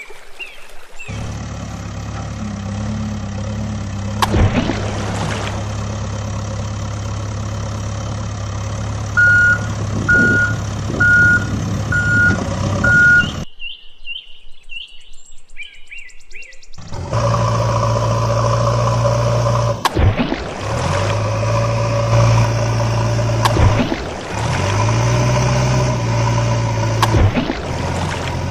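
Heavy truck engine running steadily, with a reversing alarm beeping about six times in a regular row about nine seconds in. The engine cuts out for a few seconds, then runs again with its revs dipping and rising.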